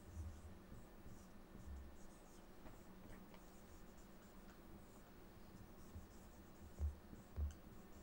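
Felt-tip marker writing on a whiteboard: faint scratchy strokes and squeaks as letters are drawn, over a low steady hum. Two short low thumps near the end are the loudest sounds.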